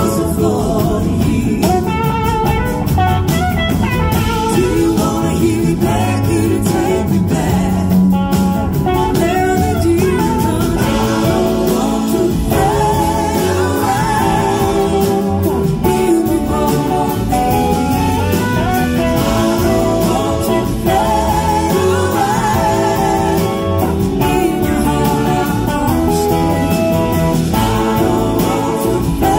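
Live blues-rock band playing a slow song, with two electric guitars, bass and drum kit, and a woman singing lead; a steady, loud full-band sound.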